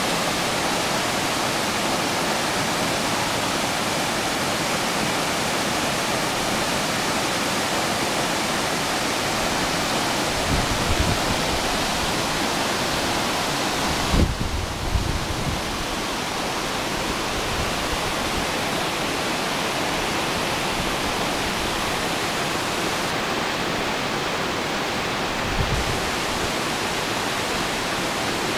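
Waterfall pouring into a plunge pool, a steady unbroken rush of falling water. A few low thumps come through about ten, fourteen and twenty-six seconds in.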